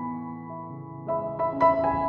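Background instrumental music with held piano notes, a few new notes struck about a second in.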